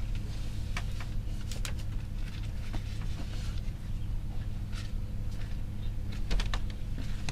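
Scattered light clicks and creaks of a slatted bamboo bed and a woman's movements as she climbs off it, with a cluster of knocks near the end, over a steady low hum.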